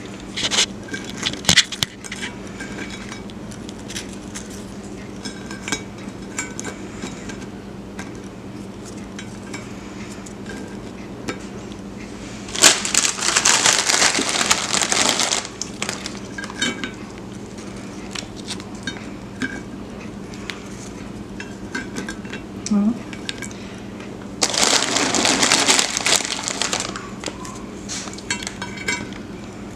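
Vanilla wafers being set into a dish, with scattered light clicks and clinks, and two bursts of crinkly rustling about three seconds long, one near the middle and one towards the end. A low steady hum sits underneath.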